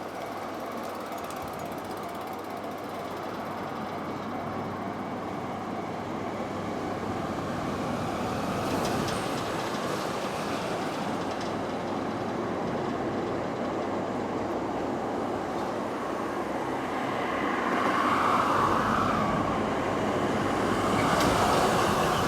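Freight train hauled by an EF66 electric locomotive running along the line, a steady rolling rumble of wheels on rail that slowly grows louder toward the end, with a few sharp clicks.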